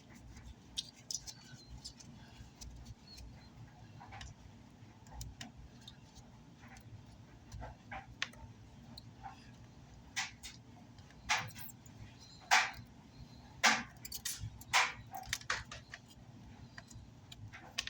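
Scattered sharp clicks and taps of hand tools working on an amplifier circuit board, a few at a time and then a quicker run of louder ones about ten to fifteen seconds in.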